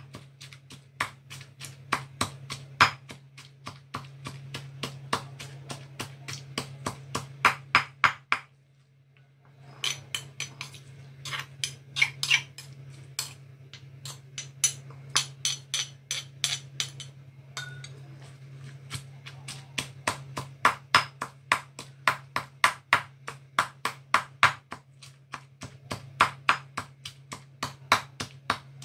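Stone pestle pounding dried chillies in a heavy stone mortar: a steady run of sharp knocks, several a second, with a short pause about a third of the way in.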